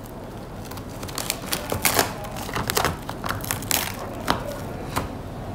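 Thin clear plastic food wrapping crinkling and crackling irregularly as a hand pulls it open.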